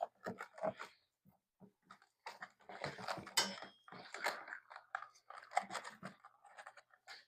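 Irregular rustling and crinkling of the bear prop's fabric pants and the plastic bag of padding as they are handled, with a sharper click about three and a half seconds in.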